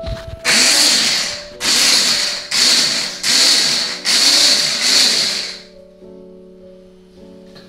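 Electric hand blender with chopper attachment run in about five short pulses, its motor speeding up and slowing down with each, chopping garlic cloves; the pulses stop a little past halfway. Background music plays throughout.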